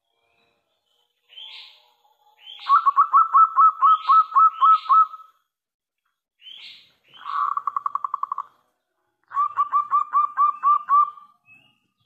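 Zebra dove (perkutut) cooing: three runs of quick, staccato repeated coos, the middle run a faster rattle, with short higher notes between them.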